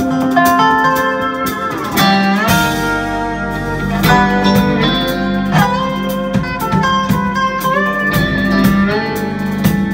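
Live acoustic band playing, with a dobro (resonator slide guitar) taking the lead in plucked runs and sliding notes over a steady bass line and guitar accompaniment; a pronounced downward-then-upward slide comes about two seconds in.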